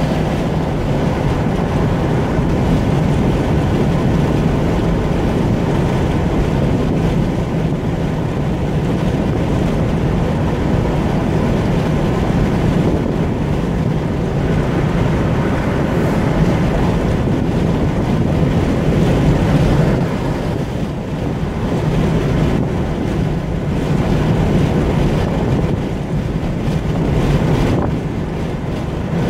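Steady road noise of a car cruising at motorway speed, heard from inside the cabin: tyre roar on the asphalt with wind noise and a low drone.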